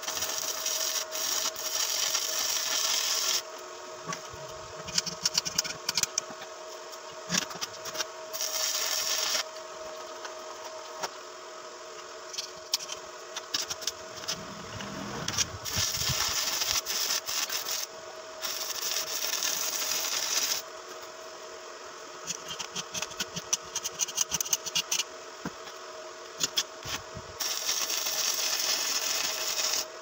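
Stick (arc) welding: the arc hisses and crackles in runs of one to three seconds. It stops and strikes up again several times, with sputtering clicks in between. A steady hum sits underneath.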